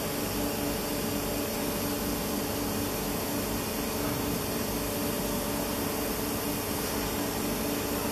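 Steady hum and rushing noise from a VR intercity double-decker coach's under-floor equipment and ventilation, with a couple of constant droning tones.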